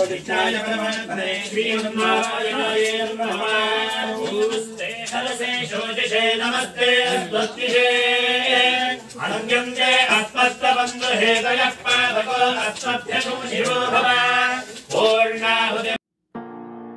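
Male voices chanting mantras together at a steady, held reciting pitch, for the fire offering of a grahashanthi homa. Near the end the chanting cuts off abruptly and soft instrumental music of held notes begins.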